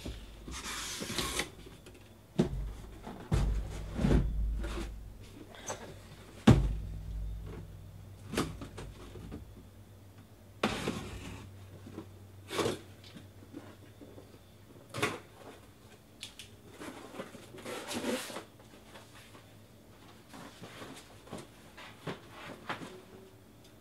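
Cardboard hobby boxes being pulled out of a shipping case and set down on a table: a series of knocks and thuds, the heaviest about six seconds in, with short spells of cardboard scraping and sliding.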